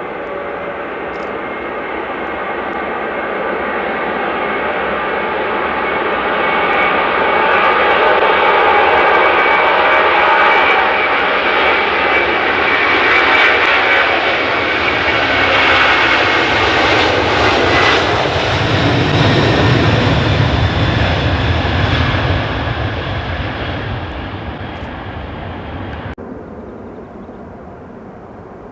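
Boeing 747SP's four jet engines at takeoff power as the airliner goes by. A many-toned jet whine builds to a loud peak, a deep rumble swells in around the middle, and the sound fades away, dropping off suddenly near the end.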